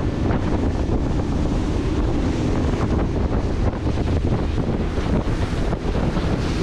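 Wind buffeting the microphone on a moving boat, over the steady drone of the boat's engines and the wash of the sea.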